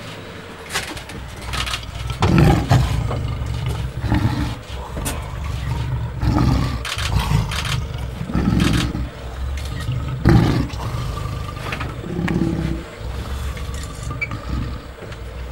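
Lion giving a series of deep roaring grunts, about one every two seconds, over the steady hum of a vehicle engine running.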